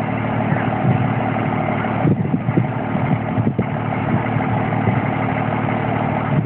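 Volkswagen Constellation truck's diesel engine idling steadily.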